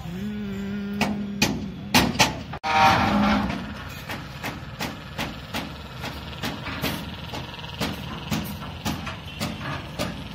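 Hammer knocking on aluminium formwork panels, sharp metallic knocks about two to three a second, typical of pins and wedges being driven to lock Mivan panels together. Background traffic hum, with a steady horn-like tone in the first second and a half.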